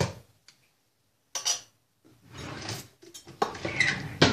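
Kitchen utensils and containers handled on a tabletop: a knock at the start, another short clatter about a second and a half in, and a longer run of clattering and rustling over the last second or so.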